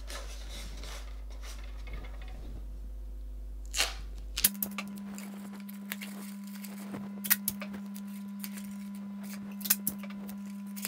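Blue masking tape being pulled off the roll, torn and pressed onto a polystyrene box: a rip about four seconds in, then scattered crackles and sharp ticks.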